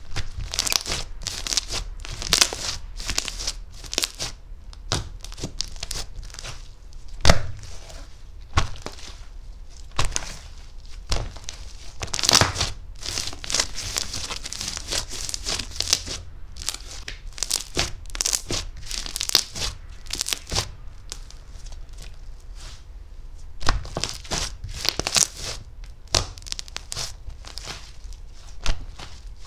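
Butter slime being squished, pressed and stretched by hand, making an irregular run of small crackles and sticky squelches.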